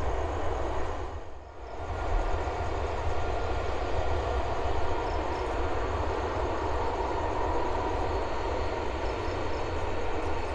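Jet airliner engines running across the airfield: a steady rushing noise with a faint whine over a low rumble, briefly quieter about a second and a half in.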